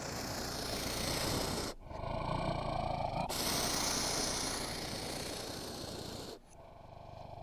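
Animal vocal sounds in several short clips cut together, mostly noisy with a brief pitched call about two seconds in.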